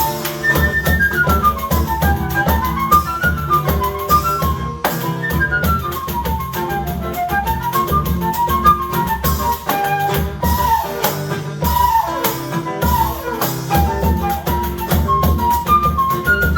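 Flute playing a fast instrumental choro melody in quick rising and falling runs, over acoustic guitar accompaniment and light hand percussion.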